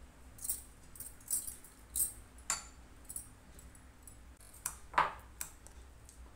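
Glass bangles jingling on the cook's wrists as her hands move, a series of light clinks, about eight in all, the loudest about five seconds in.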